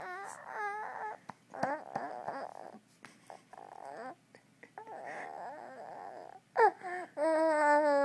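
A sleeping four-month-old baby making vocal noises in his sleep: a few short whimpers, noisy breathing, then a louder, drawn-out whine near the end.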